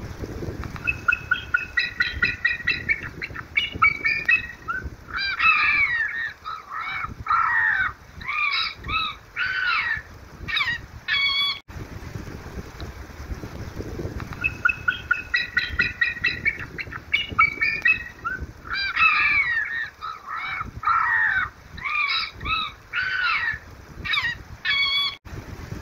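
Recorded bird distress calls played through a bird-scaring device's loudspeaker: rapid pulsed honking cries, then a run of gliding calls. The same sequence of about twelve seconds plays twice, with an abrupt cut between.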